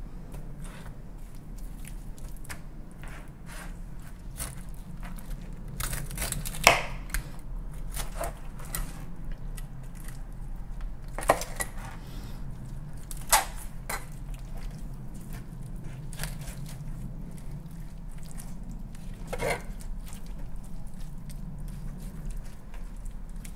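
Chef's knife cutting up a salmon head on a plastic cutting board: soft wet cutting and scraping with four sharp knocks as the blade splits bone and strikes the board, over a steady low hum.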